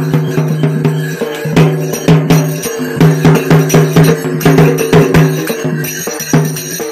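Loud music with fast, dense drumming and bell-like jingles over a steady held tone that breaks off and comes back every second or so.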